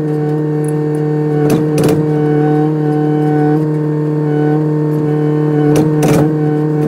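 Kubota excavator's diesel engine running at a steady speed, with two pairs of short knocks: one about a second and a half in, the other near the end.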